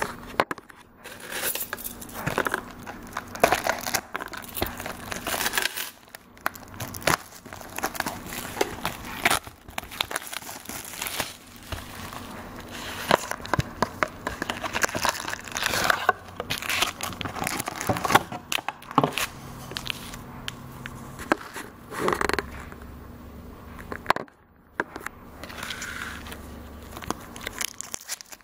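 Plastic shrink-wrap and foil booster packs of a Pokémon card booster box crinkling and tearing as the box is unwrapped and its packs are taken out, with many sharp crackles and a couple of brief pauses.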